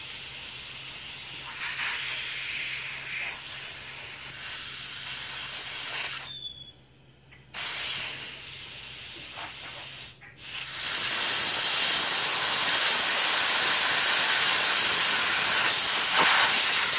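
Compressed air hissing out of leaks in a Hypertherm Powermax 45 plasma cutter's air system as the supply is opened. The hiss is uneven at first and cuts out twice briefly, then about eleven seconds in it becomes a loud steady hiss. The external filter leaks at low pressure and stops once the pressure is raised; the cutter's internal regulator keeps leaking, its valve not sealing, which the owner puts down to built-up junk.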